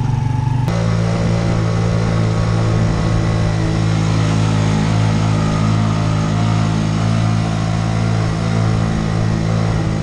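Motorcycle engine of a Philippine tricycle (motorcycle with sidecar) running loud and steady under load, heard from inside the sidecar, as it labours up a long uphill road. The engine note changes abruptly less than a second in, then holds steady.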